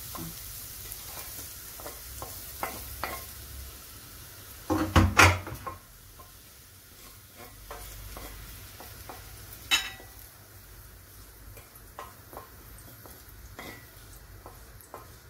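Wooden spatula scraping and stirring julienned carrots in a stainless steel frying pan, with a faint sizzle fading early on and many small scrapes against the metal. A loud clatter about five seconds in, and a single sharp knock near ten seconds.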